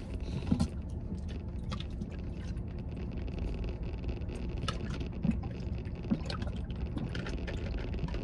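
A man drinking water from a plastic bottle, with a few faint gulps and swallowing clicks over a low steady rumble inside a truck cab.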